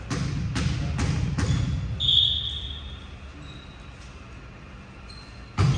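Indoor volleyball rally: several sharp ball hits and thumps in the first second and a half, then a high sneaker squeak on the court floor about two seconds in. After a quieter stretch there is another loud hit near the end.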